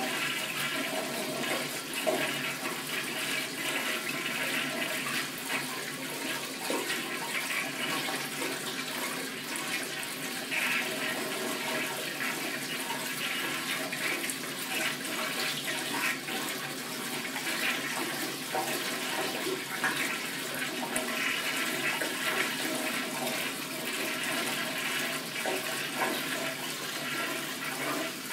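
Commercial toilet flushing without stopping: water rushes and swirls steadily into the bowl with no pause. The flush will not shut off, a malfunction of the flush valve.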